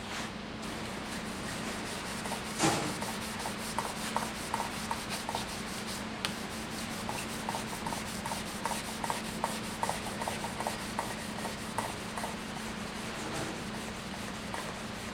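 Hand wet-sanding of a wooden stave drum shell's cured finish with wet sandpaper: repeated rubbing strokes, about three a second, with a single sharp knock about two and a half seconds in.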